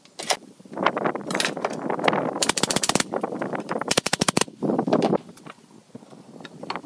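Pneumatic nail gun firing two quick bursts of nails into pine boards at a frame corner, each burst a rapid run of sharp shots lasting about half a second. Single knocks and scraping from the boards being handled come before and between the bursts.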